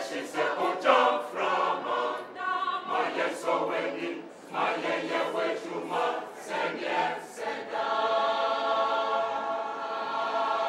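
Mixed choir of women's and men's voices singing in short phrases, then holding one long sustained chord for the last few seconds.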